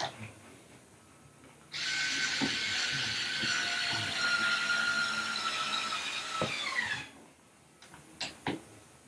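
Cordless screw gun running for about five seconds, turning a screw in the metal seat pan of a theater chair, a steady whine whose pitch sags just before it stops. A couple of short clicks follow near the end.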